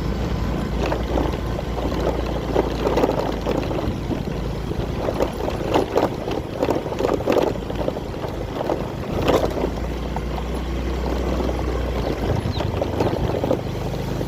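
Steady low engine hum with irregular splashing, rushing water over it, as of a small boat underway.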